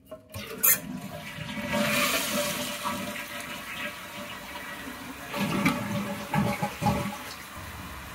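Toilet being flushed as a test of its newly replaced flapper: a sharp click just under a second in, then the tank water rushing out past the lifted flapper into the bowl. A few louder gurgles come near the end as the flush drains away.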